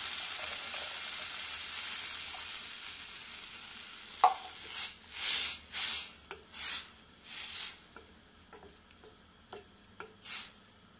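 Grass-pea and tomato stew in a stainless steel pot sizzling with a steady hiss as the peas' cooking water is poured in. The hiss fades after three or four seconds. A wooden spatula then stirs the pot in a run of short strokes about half a second to a second apart, with one last stroke near the end.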